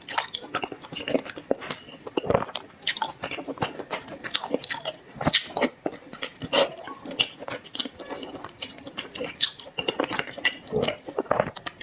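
A person chewing and biting zongzi (sticky-rice dumplings) close to the microphone: a steady run of short, irregular mouth clicks and smacks.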